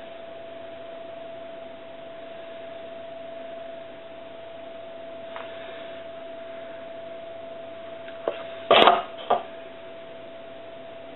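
Kitchenware handling: a faint knock, then a quick run of sharp knocks and a short clatter about eight to nine seconds in, as hard objects touch the mould and counter. Under it a steady high hum runs throughout.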